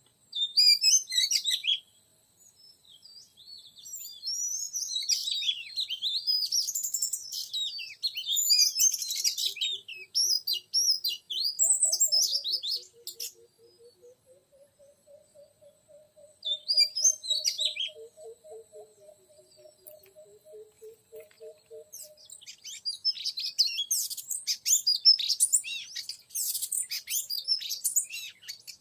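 Oriental magpie-robin song: varied high whistled and chattering phrases in bursts with short gaps, busiest near the end. Through the middle a lower pulsed trill wavers up and down beneath it.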